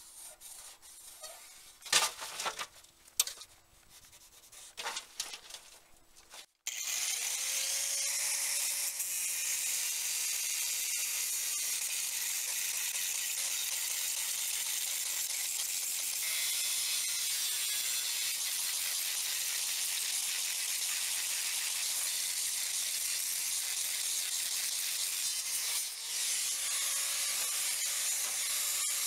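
Angle grinder with a cut-off disc cutting through the steel shell of an old water-heater tank: a steady, hissing grind with a faint motor whine underneath. It starts suddenly about six seconds in, after a few faint knocks, and dips briefly near the end before carrying on.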